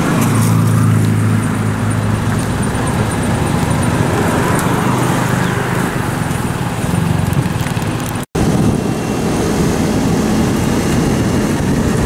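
Concrete mixer truck's diesel engine running with a steady low hum. After an abrupt cut about eight seconds in, rougher road-vehicle noise of traffic on the street.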